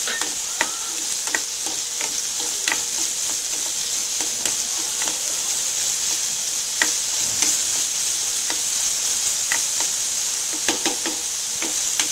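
Diced carrots and capsicum sizzling steadily in hot oil in a nonstick wok while being stir-fried, with a spatula scraping and clicking against the pan every second or so.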